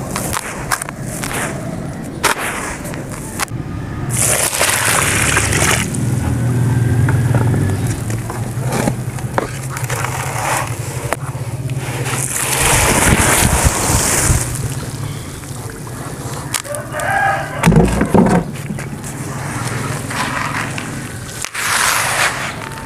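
Dry gritty sand crumbling from the hands and pouring into a tub in hissing rushes, the second rush falling into muddy water. About seventeen seconds in, a rooster crows in the background.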